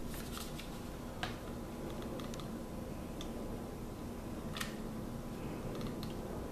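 A few light clicks and taps as bamboo strips are handled and pressed into place on a stone countertop, over a steady low room hum.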